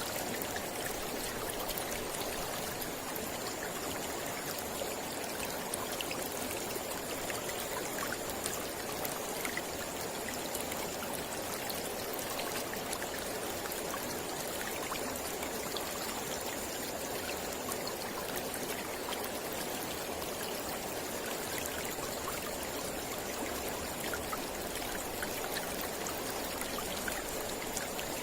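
Mountain river flowing steadily: a continuous rush of water with fine splashing.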